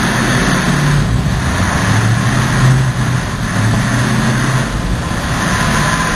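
CTM landing craft's diesel engines running steadily: a continuous low engine drone with a deep hum.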